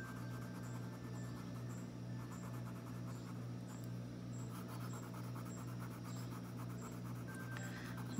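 Colored pencil scratching rapidly back and forth on paper while shading, the strokes thickening from about two seconds in. A steady low hum runs underneath.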